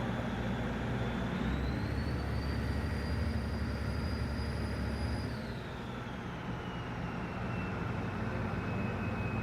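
Ferry boat's engines running with a steady low drone, under a high whine that rises about a second and a half in, holds, and falls away after about five seconds.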